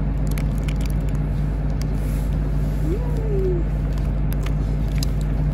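Steady low mechanical rumble with a constant hum, and a brief faint rising-then-falling tone about three seconds in.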